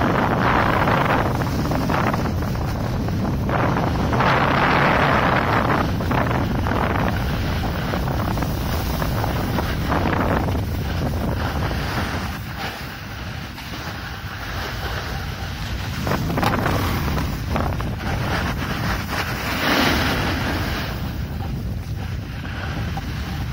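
Wind buffeting the camera microphone during a snowboard descent, with the hiss and scrape of the board on hard-packed snow swelling and fading every few seconds as the rider turns. It is quieter in the second half.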